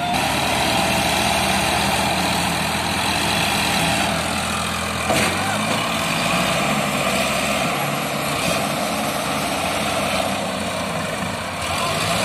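Sonalika tractors' diesel engines running steadily under load as they pull a loaded trailer stuck in mud, with one short knock about five seconds in.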